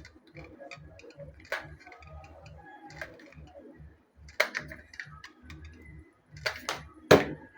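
18650 lithium cells being picked up and set against each other on a bench: scattered light clicks and knocks, the loudest two about four and a half and seven seconds in.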